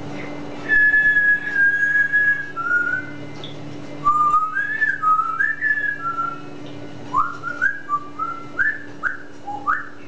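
Grey parrot whistling a string of clear notes: first one long held note, then short notes stepping up and down, and finally a quick run of short rising whistles. A steady low hum runs underneath.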